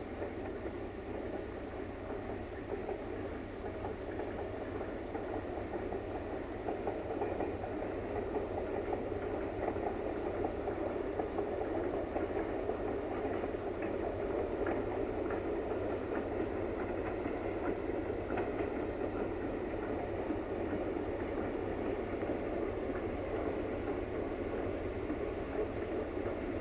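CFR class 060-DA (LDE2100) Sulzer diesel-electric locomotive approaching with a freight train, its engine running steadily and growing louder over the first ten seconds or so. Faint clicks of wheels over rail joints come through in the middle.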